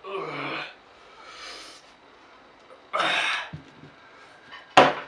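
A man huffing and gasping through the burn of a Carolina Reaper chili he has just eaten: a short vocal exhale at the start, a faint breath, a loud forceful exhale about three seconds in, and a short sharp burst near the end.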